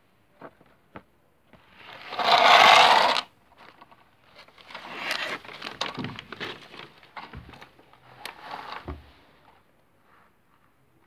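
Paper model trains handled on a wooden floor: a few light taps, then a loud rushing sound lasting about a second, followed by several seconds of irregular rustling and crackling as the paper is pushed and crumpled.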